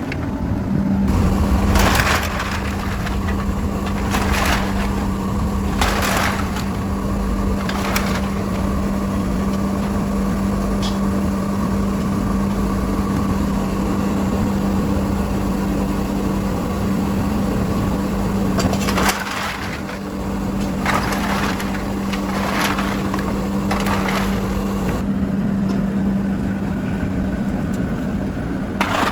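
A machine running with a steady hum while aluminium cans are crushed. Sharp crunches come every two seconds or so, in two spells.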